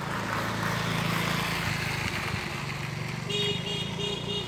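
A motorbike passing close by over the steady hum of a small engine. Near the end comes a quick run of five or six short beeps.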